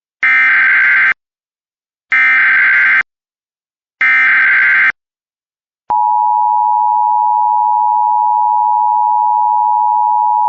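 Emergency Alert System alert opening: the SAME header sent three times as harsh digital data bursts, each just under a second long and about a second apart, announcing a local area emergency. About six seconds in, the steady attention tone starts and holds.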